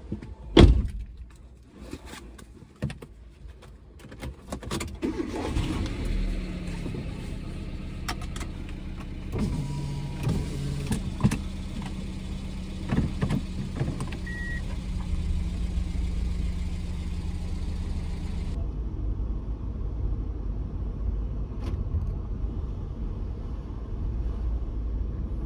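Sounds inside a car: a loud thump about half a second in, like a door shutting, then scattered clicks and handling noises. The engine then starts and runs with a steady low hum, giving way later to a steady low road rumble.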